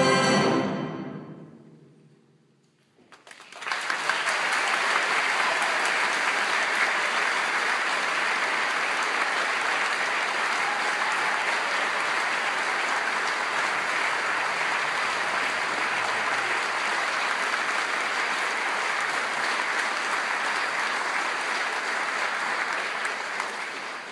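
A concert band's final held chord dies away over about two seconds. After a brief hush, about three seconds in, the audience starts applauding, steady and sustained, fading out near the end.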